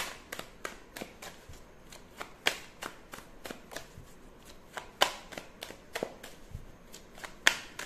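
A deck of tarot cards being shuffled by hand: a quick run of soft card clicks, with three sharper snaps about two and a half seconds apart.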